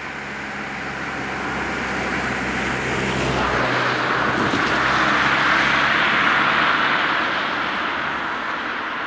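A car passing close by and driving away on the road. Its engine hum and tyre noise build up, the low engine hum falls away as it goes past about four seconds in, and the tyre noise peaks a couple of seconds later, then fades as the car moves off.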